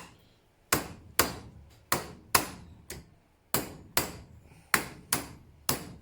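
Hammer blows on a metal hinge being bashed into shape for a bracket: about ten sharp metallic strikes, roughly two a second, each ringing briefly.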